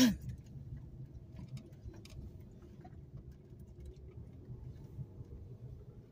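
Low, uneven rumble of a car moving slowly, heard from inside the cabin, with scattered faint ticks. The tail of a cough is heard right at the start.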